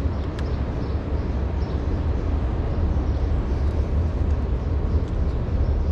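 Steady low outdoor rumble, with a faint click about half a second in.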